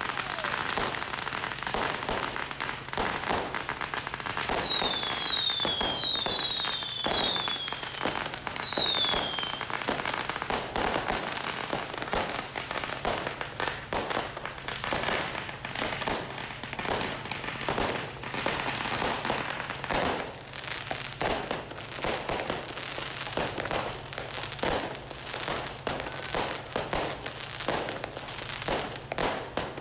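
Fireworks and firecrackers going off in a continuous rapid crackle of bangs, with a run of short falling whistles about five seconds in.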